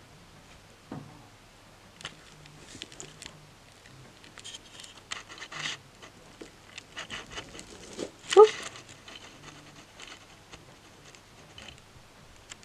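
Faint rustling and handling noises with breathing close to the microphone, and a short voiced sound about eight seconds in.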